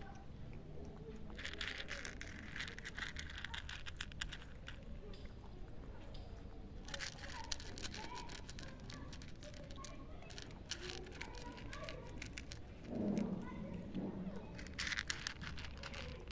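A cat crunching dry kibble, in bouts of rapid crisp crunches with short pauses between.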